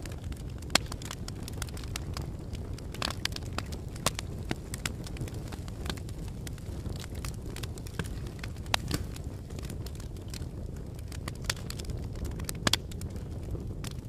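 Fireplace fire crackling: irregular sharp pops and snaps over a steady low rumble. The loudest pops come about a second in and near the end.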